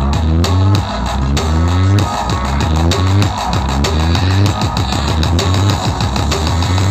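Music with a heavy bass line and steady beat, played loud through a JK Pro Audio 'full planar' sound-horeg rig of 18-inch planar subwoofer boxes with no miniscoop bass boxes. The bass dips briefly about two seconds in, then comes back.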